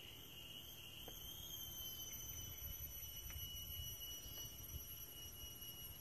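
Faint, continuous high-pitched insect trill, cricket-like, holding one steady tone, over a low rumble.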